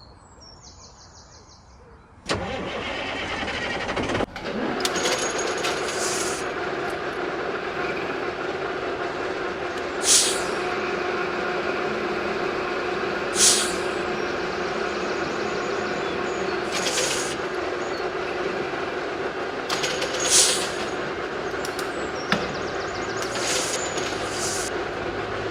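A small motor switches on about two seconds in, stutters briefly, then runs steadily with a constant hum. A short scraping hiss comes back about every three to four seconds.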